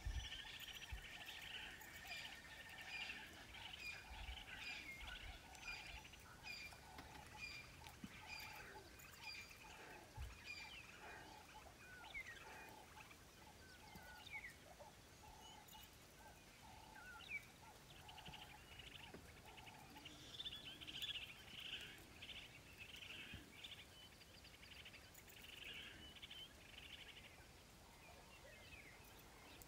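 Faint outdoor bush ambience with several birds calling: short chirps and whistles throughout, one bird repeating a low note at a steady pace for the first dozen or so seconds.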